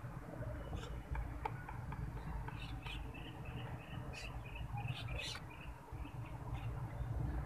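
Steady low rumble on the microphone with scattered light clicks. For a few seconds in the middle there is a quick run of short, high chirps and squeaks.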